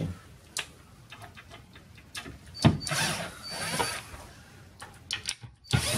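A few sharp knocks and clicks, with about a second of scraping near the middle, from the loose wooden plinth board under a kitchen base cabinet being handled.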